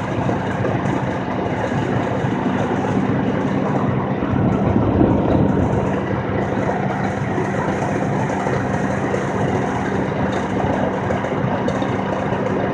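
Steady driving noise heard from inside a moving vehicle: engine drone with a constant low hum under road and tyre rumble, briefly louder about five seconds in.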